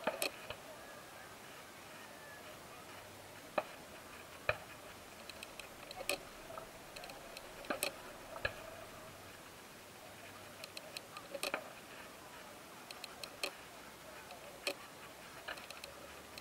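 Fireworks cracking and popping at a distance: scattered sharp reports come every second or two, with small clusters of fainter crackle in between. Low crowd chatter runs underneath.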